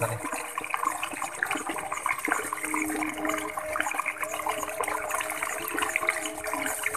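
Water splashing and trickling, with many small irregular splashes and ticks throughout.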